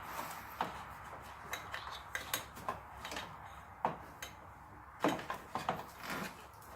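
Scattered light clicks and knocks of hoses and catch-can fittings being handled by hand, with a cluster of knocks about five seconds in.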